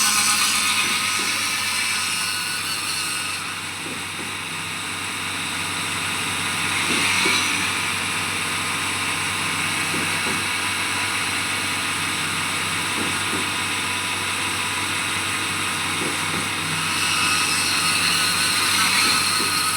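Engine-driven construction machinery at a concrete pour, running steadily throughout. It dips slightly about four seconds in and grows louder again near the end, with a few faint knocks.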